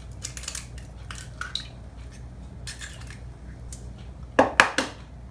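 Eggs being cracked into a mixing bowl: light taps and clicks of eggshell against the bowl, with three sharper knocks close together about four seconds in.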